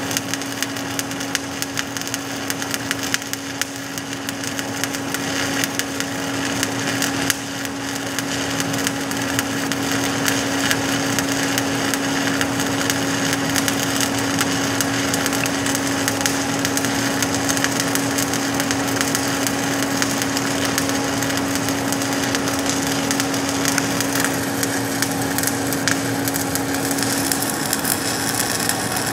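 Shielded metal arc (stick) welding arc crackling and sizzling steadily as a 7018 electrode runs a cover pass on a steel pipe joint, with a steady hum underneath that fades out near the end.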